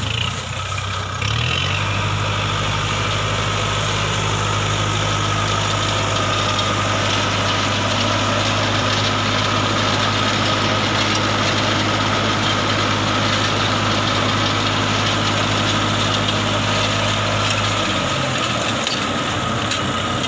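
Engine powering a round straw baler for rice straw, running steadily under load. Its note shifts about a second and a half in and eases off near the end.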